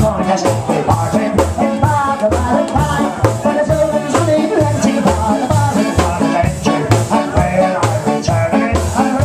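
Live Celtic rock band playing an up-tempo tune, with a steady fast beat and a melody line above it.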